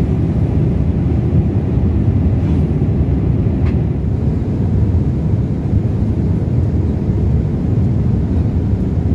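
Steady low cabin rumble of a Boeing 787-8 airliner in cruise, with airflow noise and its Rolls-Royce Trent 1000 engines heard from a window seat.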